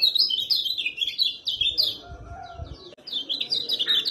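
Kecial kuning white-eyes chirping in a fast, dense run of short high chirps, easing off briefly about two seconds in before picking up again, with a few faint low thumps during the lull.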